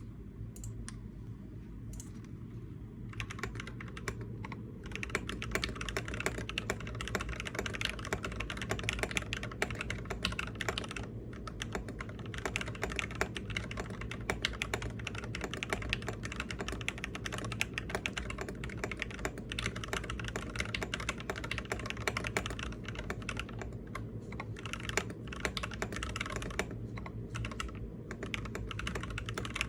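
Typing on a Lofree Touch mechanical keyboard: a rapid, continuous run of keystroke clicks that starts about three seconds in, over a steady low hum.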